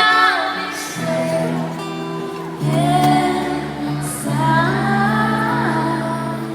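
A female pop singer sings a slow ballad live over acoustic guitar, recorded on a phone in a large arena.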